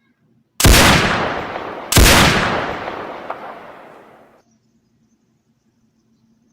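Two rifle shots from a big-game hunting rifle, about a second and a half apart, each followed by a long rolling echo; the sound cuts off abruptly a couple of seconds after the second shot.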